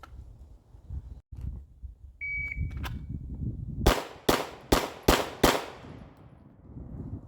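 A shot timer's start beep about two seconds in, then five 9mm pistol shots from a Glock 19 fired in quick succession, about 0.4 s apart, each ringing out briefly. Low wind rumble on the microphone underneath.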